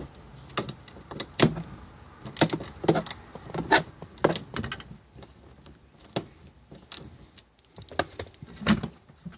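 Irregular metallic clicks and clinks of hand tools and metal parts as a fitting on the convertible top's hydraulic line is loosened.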